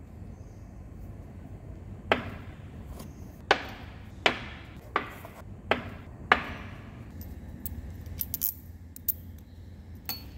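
Steel standoff spacers with bolts and nuts being set down one at a time on a workbench: six sharp knocks with a short metallic ring over about four seconds, followed by a few lighter clicks as the parts are handled.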